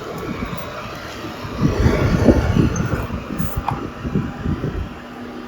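Kubota M6040 tractor's diesel engine running as it moves up close to the stuck skid steer, a rough low rumble that grows louder in the middle and then eases off.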